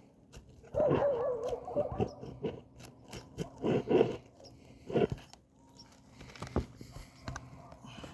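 Brittle asphalt shingles being worked with a pry tool while nails are hunted under the tabs: scattered sharp clicks and crunches. A few short, louder pitched cries come in among them, one wavering about a second in.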